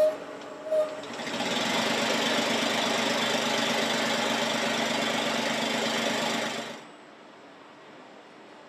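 BMW engine running on an automated test stand: it comes up to speed about a second in, runs steadily for about five seconds, then cuts off abruptly. Two brief tones sound just before it starts.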